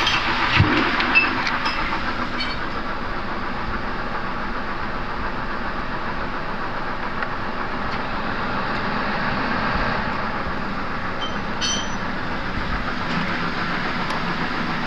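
2011 Kia Forte engine idling steadily with the aircon and lights on, a rhythmic rattle from a noisy accessory pulley bearing running through it. There are two light knocks about a second in. The idle is even with no jerking now that the coils and spark plugs are replaced, and the mechanic puts the rattle down to a worn pulley bearing.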